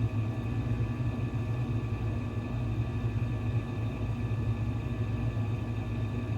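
Steady low hum with a few faint, steady high-pitched tones above it: background room or appliance noise with no distinct events.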